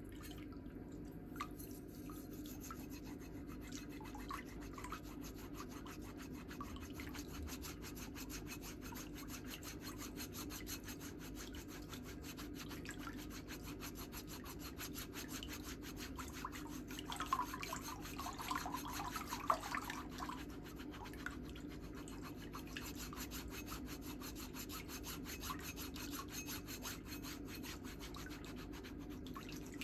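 Stainless steel foot file rubbing over the heel and sole of a foot in fast, continuous strokes, scraping off dry, flaky skin, over a low steady hum.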